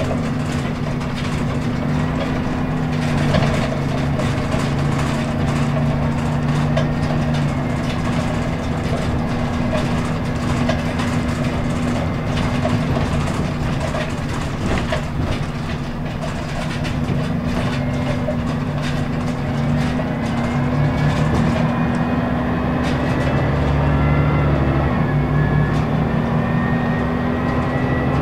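Scania L94UB city bus heard from inside the passenger cabin while driving: its diesel engine runs steadily with a ZF automatic gearbox whine, and light rattles and clicks come from the interior. The engine grows louder and the whine rises a little in pitch near the end as the bus pulls away and speeds up.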